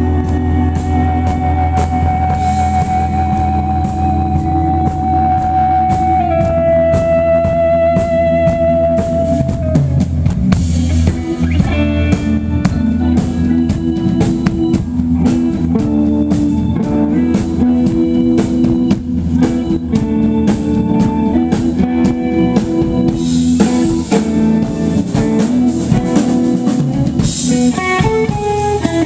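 A live blues-rock band playing: electric guitar and drum kit with keyboard, the drums keeping a steady beat. A long held note steps down once about six seconds in and gives way to busier playing after about ten seconds.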